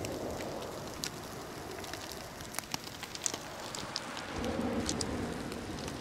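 Cod sizzling on a charcoal barbecue whose coals the wind is fanning hot: a steady hiss dotted with small crackles and pops. A soft low rush swells briefly about four seconds in.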